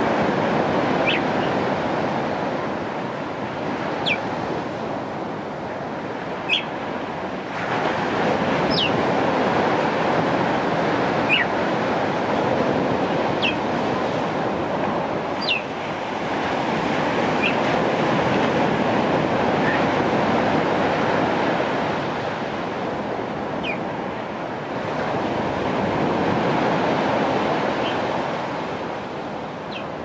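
Caribbean Sea surf breaking and washing over a rocky shore: a steady rush that swells and eases every several seconds. Short high chirps that fall in pitch sound over it every couple of seconds.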